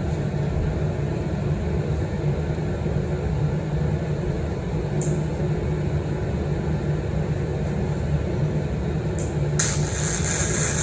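Electric welding arc crackling and buzzing steadily as braces are welded onto steel plate. It cuts off abruptly near the end.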